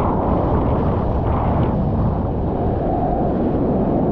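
Wind buffeting the microphone over ocean surf: a steady, loud noise with no distinct events.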